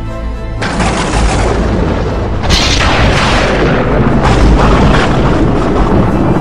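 Loud booming sound effect like explosions: a dense noise that sets in sharply about half a second in, grows louder about two and a half seconds in, and surges again near four and five seconds.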